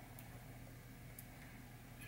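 Near silence: room tone with a faint steady low hum and two faint ticks.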